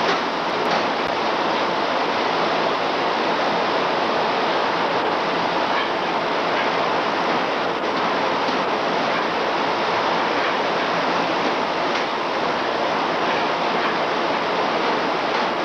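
Steady, loud din of shovel-factory machinery running, with a few faint knocks.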